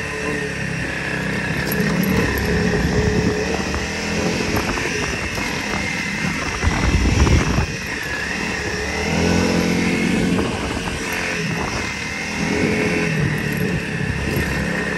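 Motorcycle engine running while riding, its revs rising and falling, with wind rumble on the microphone that grows louder about seven seconds in.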